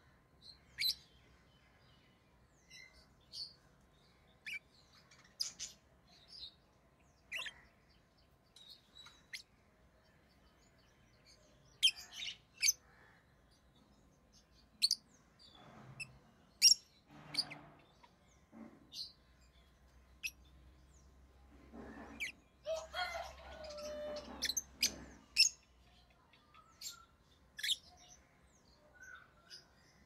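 Rosy-faced lovebirds chirping: short, high, sharp chirps at irregular intervals, with a longer run of busy chattering a little past the middle.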